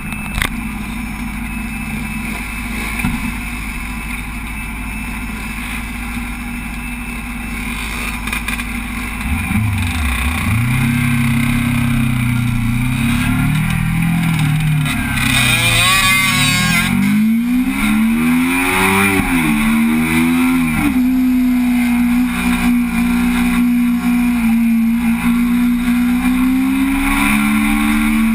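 Sport motorcycle engine idling steadily, then pulling away about nine seconds in and revving up through several gear changes, the pitch rising and dropping each time, before settling to a steady cruise. Wind rushes over the handlebar-mounted camera during the hardest acceleration.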